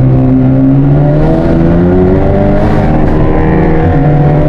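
Honda Civic Type R FK8's turbocharged 2.0-litre four-cylinder engine pulling hard under acceleration, heard from inside the cabin. The revs climb for about three seconds, drop sharply at a gear change, then climb again.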